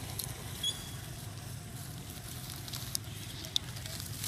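Dry leaves crackling as two baby macaques scuffle over them, with a few sharp clicks, over a steady low rumble. A single short high chirp comes about a second in.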